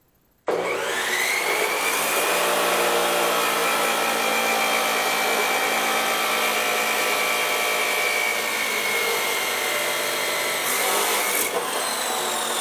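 Metal-cutting chop saw spinning up with a rising whine about half a second in, then running steadily under a loud, harsh hiss as it cuts through steel flat bar. The whine drops away near the end.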